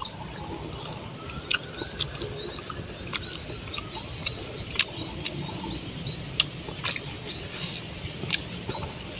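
Small birds chirping over and over in short, high notes, with a faint steady high tone behind and scattered sharp clicks.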